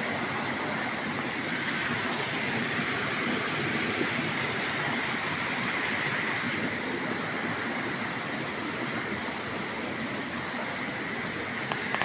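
Steady rushing of water flowing over rocks in a stream below a waterfall, an even unbroken noise.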